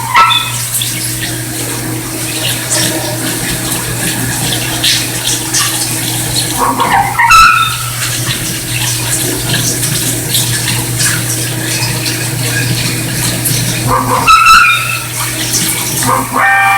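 CNC machining center cutting stainless steel under flood coolant: a steady machine hum under a constant splashing hiss of coolant, with a brief rising whine twice, about seven and fourteen seconds in.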